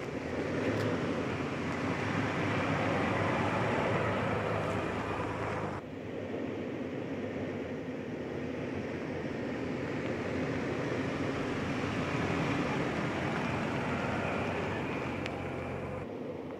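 SUV driving slowly on a dirt forest track, engine running under the sound of tyres on dirt. There are two takes: the first is cut off sharply about six seconds in, and each swells as the vehicle comes closer.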